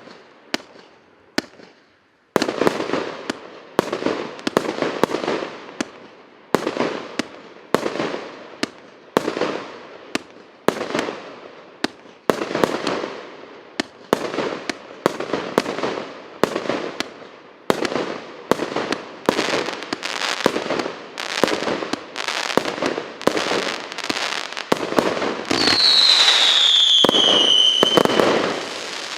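An 88-shot whistling fireworks cake (Korporativka) firing shot after shot, roughly two a second, each report followed by a decaying crackle. Near the end the shots run together into a continuous loud spell with a falling whistle.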